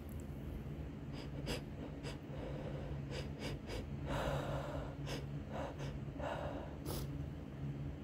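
A person's hitching, gasping breaths as a sneeze comes on, with the loudest breathy rush about four seconds in and shorter ones around six seconds, and small clicks between them.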